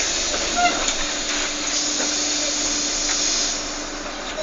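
A steady hiss that eases off near the end, with a brief beep about half a second in.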